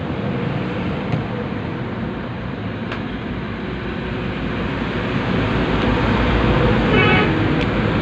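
Steady background rumble, like traffic or wind noise, growing louder over the last few seconds, with a few faint clicks from the plastic hair dryer housing being handled.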